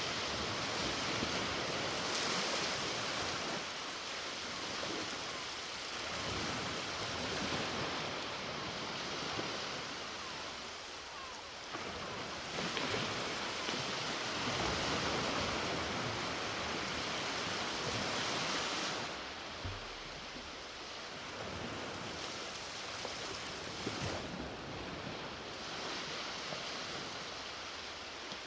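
Ocean waves breaking and washing on the beach, a steady hiss that swells and ebbs every few seconds.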